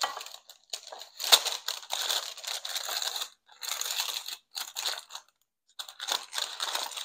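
Parchment paper crinkling and rustling in a loaf pan as a rolled dough log is pressed down and tucked into it, in irregular bursts with short gaps.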